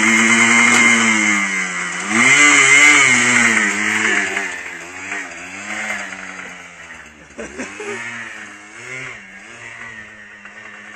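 Quad bike engine running under changing throttle, its pitch rising and falling over and over, growing fainter through the second half as it moves off.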